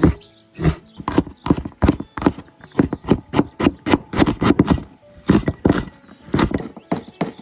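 Kitchen knife chopping chillies and pork on a cutting board: quick, uneven strokes at about three a second.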